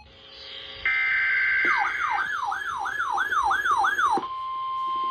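Electronic alert sounds: a steady chord of high tones, then a run of about six falling siren-like sweeps at roughly two a second. About four seconds in these give way to a single steady high tone, the NOAA Weather Radio warning alarm tone that comes before a broadcast weather warning.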